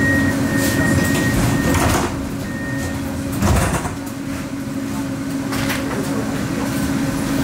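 Tram's sliding doors closing at a stop over the steady hum of the tram's equipment: a high, broken beeping tone for the first three seconds, then a short thud about three and a half seconds in.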